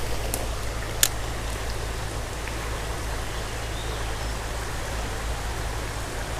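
A small creek's water running steadily, with a sharp click about a second in.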